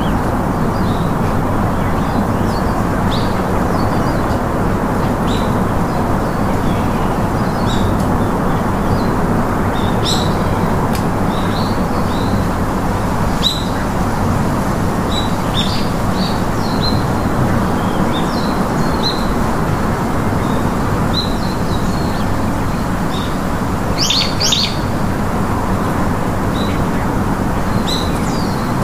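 Birds chirping, with short calls scattered throughout, over a loud, steady rushing noise.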